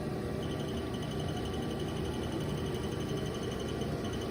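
Sub spindle of a Haas DS30Y CNC lathe running steadily at 500 RPM, a low, even hum. A faint high, rapidly pulsing tone rides over it from about half a second in.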